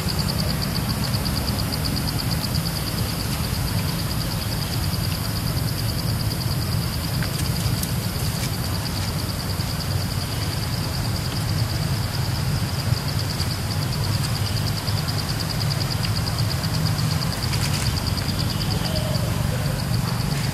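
Steady high-pitched insect drone, pulsing rapidly without a break, over a continuous low rumble.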